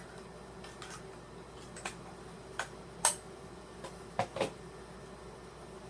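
Sharp plastic clicks and knocks, about seven scattered over a few seconds with the loudest about three seconds in, as AA batteries are fitted into the AcuRite 5-in-1 weather sensor's battery compartment.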